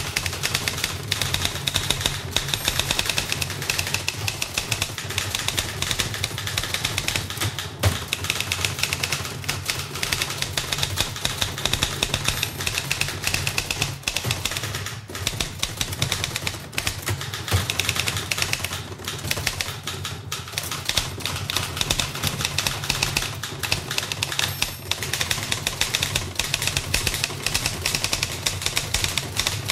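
Two manual typewriters being typed on fast at the same time: a dense, unbroken clatter of key strikes, with only a few short breaks. Recorded close, in an office room.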